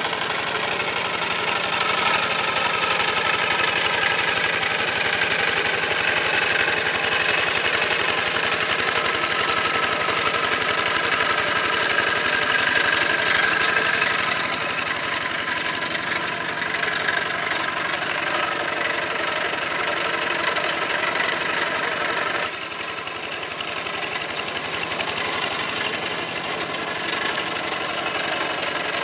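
An old Kubota single-cylinder diesel on a two-wheel hand tractor runs steadily under load, knocking as it drives cage wheels through a muddy rice paddy. It turns a little quieter about two-thirds of the way through.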